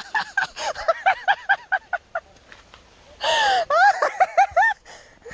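A person laughing hard in quick, breathy bursts. About three seconds in comes a short shriek that falls in pitch, and then the laughter picks up again.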